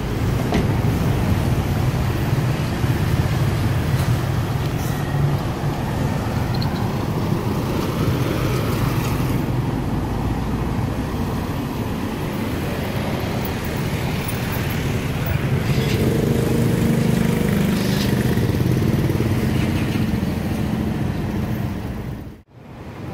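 Motor vehicle engine running with road and traffic noise, heard from a slowly moving vehicle: a steady low rumble, with a second pitched engine note joining about two-thirds of the way in.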